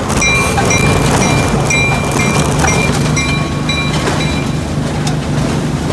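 Ride-on miniature train pulling away, its front bell ringing over and over, about two or three strokes a second, stopping about four seconds in. Under it the train's steady low running hum and some rail clatter.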